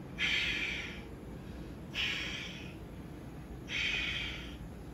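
A woman's forceful breaths: three short, hissing breaths spaced almost two seconds apart, one with each repetition of a dumbbell exercise.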